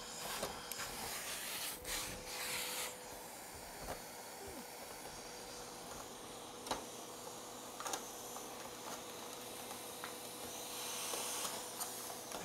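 HEPA vacuum hose hissing steadily with a faint whine while old glazing putty is scraped out of a wooden window sash. The scraping and light clicks are busiest in the first three seconds, then come only now and then.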